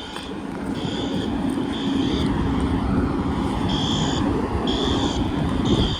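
Fire alarm horns sounding in the temporal-three evacuation pattern: three high beeps about a second apart, a pause, then three more. Under them a vehicle engine runs with a steady low hum and rumble.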